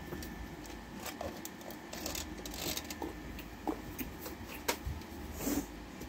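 Faint rustling and a few small, sharp clicks of plastic toys being handled.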